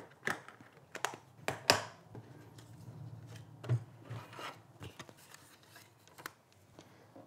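Hard plastic clacks as the clear acrylic cutting plates of a Stampin' Cut & Emboss die-cutting machine are set down and handled on a table. There are several sharp knocks in the first two seconds, the loudest near two seconds in, then softer taps and light rustling of cardstock pieces being laid on the plate.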